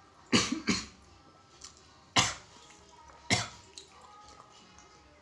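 A man coughing four times in short, harsh bursts, two in quick succession near the start and two more about a second apart after that, while eating.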